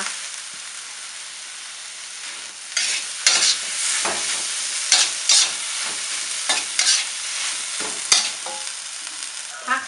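Bamboo shoots, egg and sweet basil sizzling in a hot wok. From about three seconds in, a metal spatula scrapes and clatters against the wok again and again as the food is tossed.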